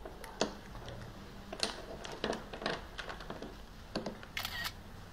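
Scattered light clicks and taps, a few at a time, with a sharper, slightly longer click about four and a half seconds in.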